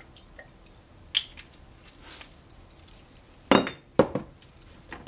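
Scattered clinks and knocks of kitchenware around a saucepan as sauce ingredients are added, with a soft hiss in between. The loudest are a knock about three and a half seconds in and a sharp click just after it.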